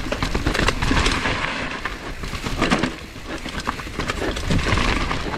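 Mountain bike descending a rough, rain-wet dirt trail: a dense, continuous rattle of the bike and its tyres over the bumpy ground.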